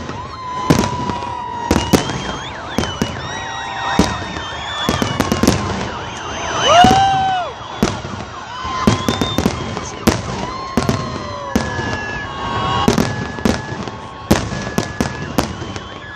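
Fireworks display: a steady run of sharp bangs and crackling bursts, mixed with whistling fireworks whose tones glide up and down. The loudest whistle rises and falls around the middle.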